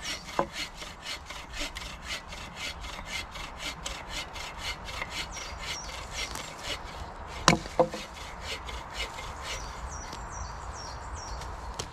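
Hand saw cutting through wood in quick back-and-forth strokes, about four a second, thinning out near the end, with a sharp knock just after the start and a louder one about seven and a half seconds in.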